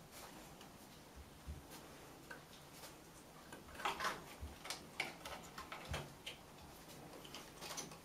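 Kittens' claws ticking and scratching on the bark of a branch cat tree as they climb: a scatter of faint clicks, thickest about four and five seconds in, with a few soft thumps.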